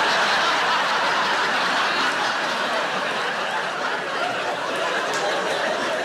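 A large theatre audience laughing hard after a punchline, the laughter easing slightly toward the end.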